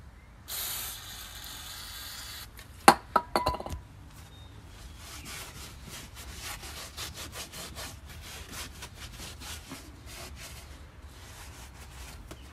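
Aerosol brake cleaner sprayed onto a brake caliper in a hiss of about two seconds, followed by a few sharp clinks. Then a rag wipes the caliper down in quick, rhythmic rubbing strokes.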